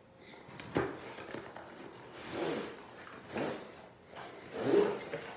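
A tripod's cardboard box and packaging being opened and handled: a sharp knock about a second in, then several short rustling scrapes.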